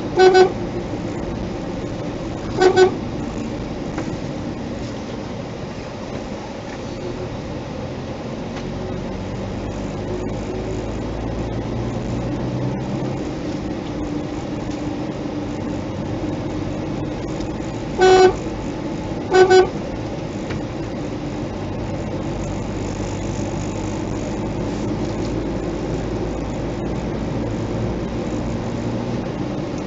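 Car horn giving four short beeps, two near the start and two more about two-thirds of the way through, over the steady hum of a moving car's engine and tyres on the road.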